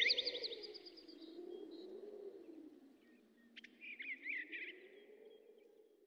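Recorded birdsong: a quick trill of chirps right at the start, then a second short burst of chirps about three and a half seconds in. Under it runs a faint, slowly wavering low drone that fades away.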